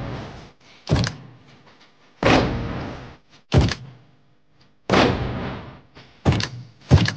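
A run of heavy thuds, about one every second and a half, each starting sharply and fading out over about a second.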